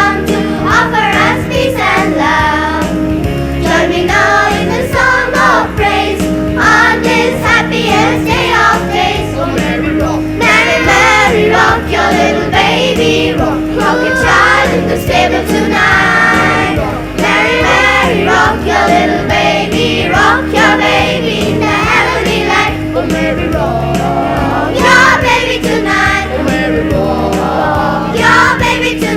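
School choir singing with instrumental accompaniment, voices in harmony over steady held bass notes.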